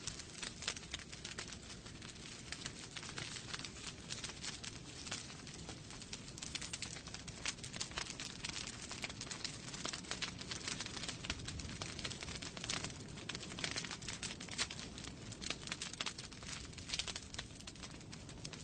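Fire in a fireplace crackling: a dense, irregular run of sharp snaps over a low, steady rumble of the flames.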